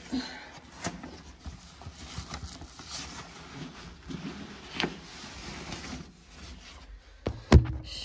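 Rummaging through belongings: scattered clicks and knocks of things being handled, with one loud thump about seven and a half seconds in.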